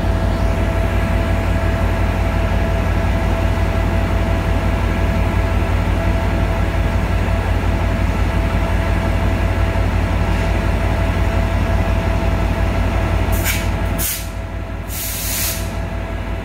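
Trinity Railway Express diesel-electric passenger locomotive standing at idle: a steady low engine drone with a steady whine over it. Near the end, a few short sharp hisses of released air come as the drone drops back.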